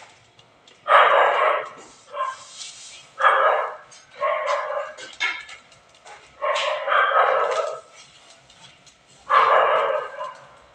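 A dog barking repeatedly, about six bouts of barks spaced one to three seconds apart.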